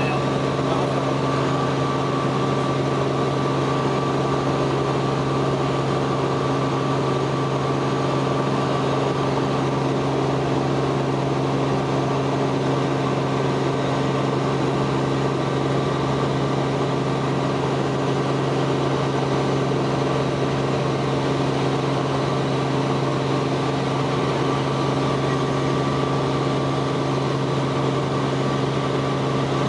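Robinson R44 helicopter in flight, heard from inside the cabin: its six-cylinder Lycoming piston engine and rotors running steadily, a constant low hum with a few fainter steady tones above it.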